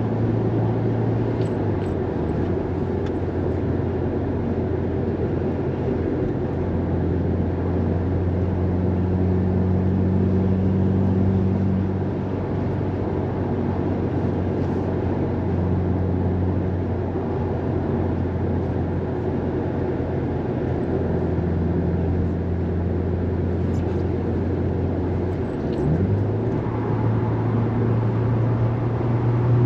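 Subaru WRX STI's turbocharged flat-four engine heard from inside the cabin, with tyre and road noise, while cruising at a steady engine speed. About four seconds from the end the engine note rises quickly and holds higher and louder as the car accelerates.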